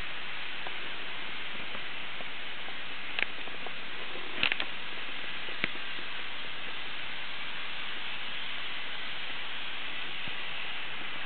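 N-scale model trains running on a layout: a steady hiss with a few short, sharp clicks, a cluster of them about four and a half seconds in.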